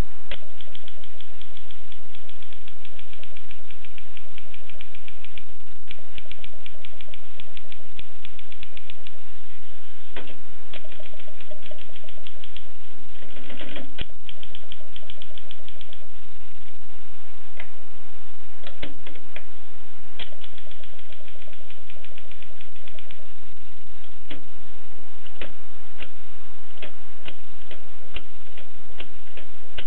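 Alpina manual typewriter being typed on: keys strike in quick runs of clicks with short pauses between them, and now and then a heavier single stroke.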